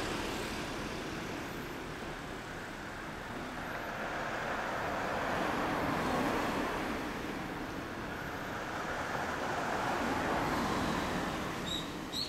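Road traffic: cars passing by one after another, the noise swelling and fading about three times, with a few small clicks near the end.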